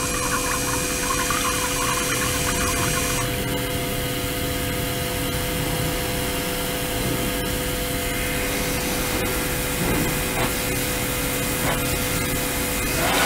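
Water pouring from a plastic nozzle into a water-filled tank, over a steady machine hum with several fixed tones from the pump and ultrasonic equipment. About three seconds in the splashing hiss drops away, leaving the hum and the gentler trickle of the stream.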